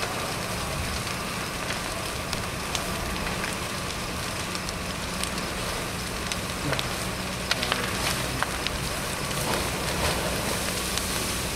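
Fully involved garage fire burning: a steady rushing noise with scattered sharp crackles and pops, more of them from about seven to eight and a half seconds in, over a low steady hum.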